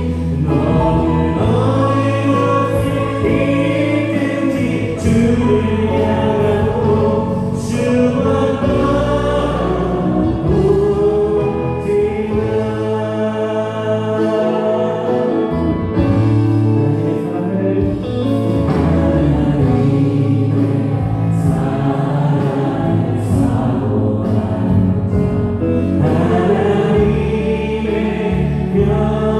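Praise band playing a worship song: voices singing a melody together over a Yamaha Montage 8 keyboard and electric bass.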